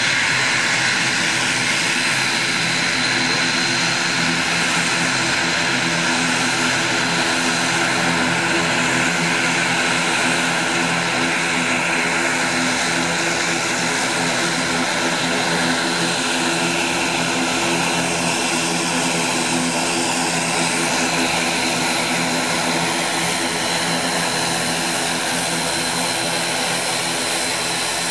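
Twin Pratt & Whitney Canada PW127 turboprops of an ATR 42-600 running at taxi power, six-blade propellers turning: a steady propeller hum with a thin high turbine whine over it.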